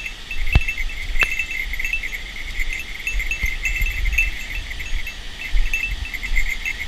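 A continuous chorus of high-pitched chirping trills, repeated in short quick groups, over a low rumble, with two sharp knocks in the first second or so.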